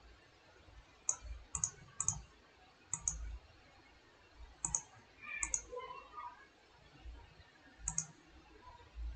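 Computer mouse button clicks, about seven at irregular intervals, each a quick press-and-release double click, as the shadow settings are adjusted.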